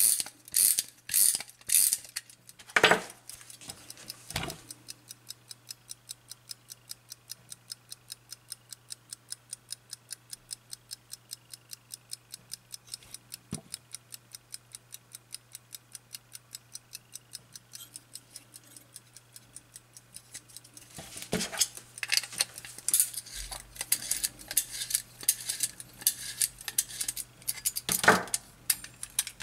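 Mainspring of a Soviet naval ship's clock movement wound with a key, its ratchet clicking a few times, then the running platform escapement ticking rapidly and evenly. From about 21 s, louder irregular clicks and knocks from the movement being handled sound over the ticking, with a loud knock near the end.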